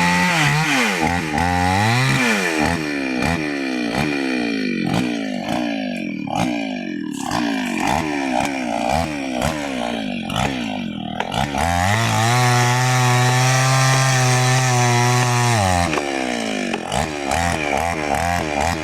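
New West 568 two-stroke chainsaw cutting into kapok wood, its engine speed rising and falling over and over as the chain bites. About twelve seconds in it holds steady at high revs for a few seconds, then drops and varies again near the end.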